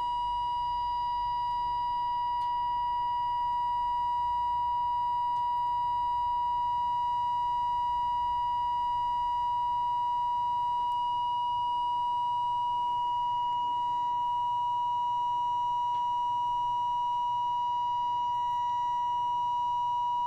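Steady, unwavering test tone from the loudspeaker of a NordMende Elektra 58 valve radio: the signal generator's modulation received on long wave at 210 kHz during alignment. It is heard while the long-wave coil is slid along the loopstick ferrite rod to peak the output.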